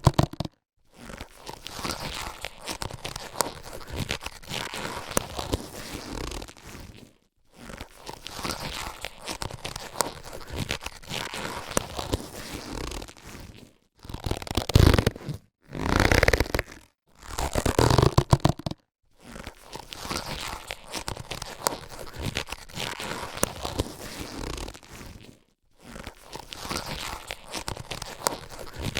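Latex surgical gloves being handled, a crackly rubbing of the rubber in takes several seconds long broken by short silences. There are louder bursts about fifteen and eighteen seconds in.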